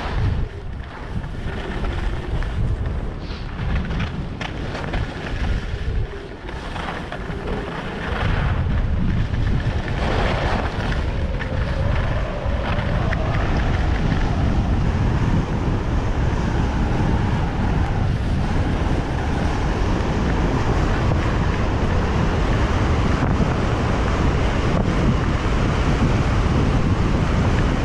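Wind buffeting the microphone of a camera carried by a skier going downhill, over the hiss and scrape of skis on packed snow. The low rumble of the wind gets louder and steadier about eight seconds in.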